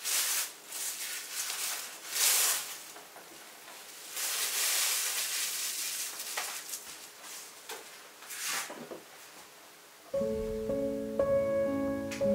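A series of irregular rustling and scraping noises, then piano music starts about ten seconds in.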